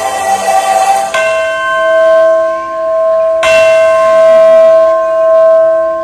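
Choral singing cuts off about a second in and a bell tone rings out, struck again about two seconds later, holding on with several clear overtones and a slow swelling waver.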